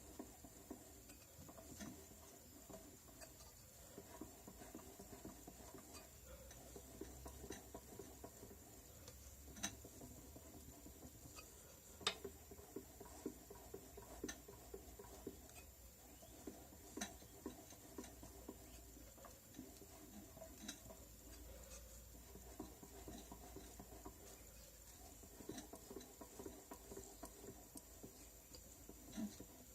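Faint, irregular knocking and tapping, a scatter of small clicks with a few louder knocks among them: the knock whose cause is being sought.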